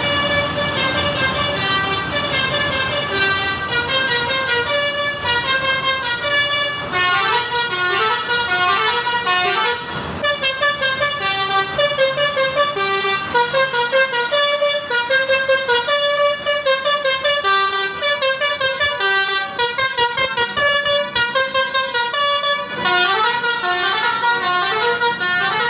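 Bus's Basuri 'telolet' musical horn playing a fast tune of short notes stepping up and down, almost without a break. There is a brief dip about ten seconds in.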